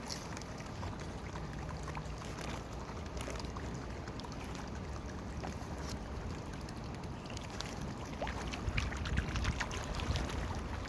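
Steady outdoor wind and water noise with a low rumble and faint scattered ticks, turning gustier and louder near the end.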